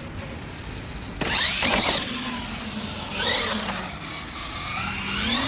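Losi LMT Gravedigger RC monster truck running on concrete: its brushless electric motor whines up and down in pitch with the throttle over the steady rush of tyres. It gets louder about a second in.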